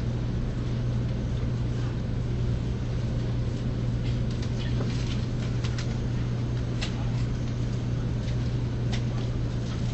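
Train carriage interior noise: a steady low hum with a rushing haze, and a few faint ticks in the second half.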